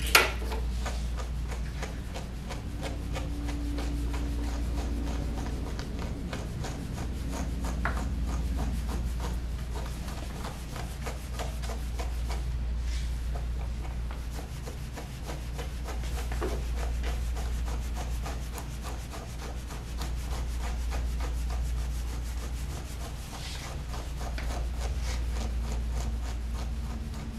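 Steel grooming comb, with a brush, raking through a schnauzer's matted fur in quick repeated strokes: a scratchy rasping as the teeth catch and tear through knots. A low steady hum runs underneath.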